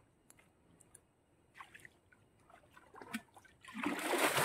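Scattered small drips and trickles of pond water, then near the end a sudden loud sloshing splash of water.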